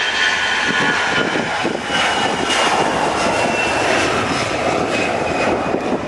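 An Airbus A321's twin jet engines at takeoff power during the takeoff roll. A loud steady roar carries a high whine that slowly drops in pitch as the airliner passes.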